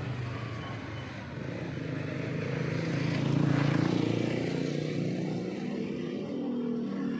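A motor vehicle passing by: a low engine hum that grows louder to a peak about halfway through and then eases off, leaving a steady engine drone.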